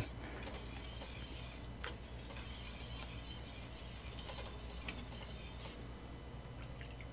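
Wire whisk stirring gravy in a stainless steel saucepan, giving faint, scattered light clicks and scrapes of metal on metal over a steady low hum.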